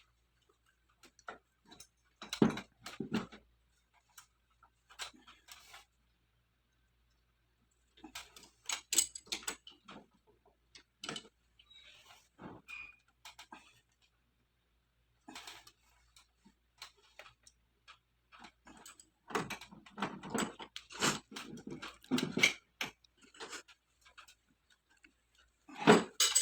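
Scattered clicks, taps and knocks from handling things, in irregular clusters with quiet gaps between.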